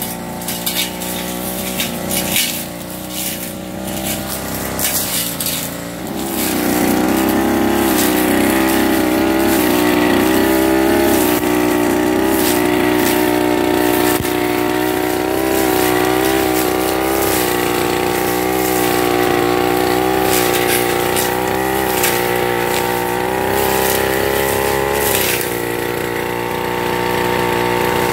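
Backpack brush cutter's petrol engine running at high speed while its spinning cutting head goes through grass and weeds. A scatter of sharp clicks runs through the first few seconds, and the engine gets louder and steadier about six seconds in.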